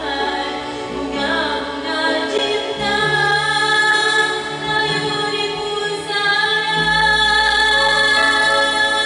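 A woman singing karaoke into a microphone over the song's backing track, holding long notes.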